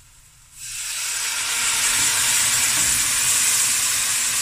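Water poured into a hot pot of oil-fried onion and masala paste, starting a sudden loud sizzle and hiss of steam about half a second in that holds steady.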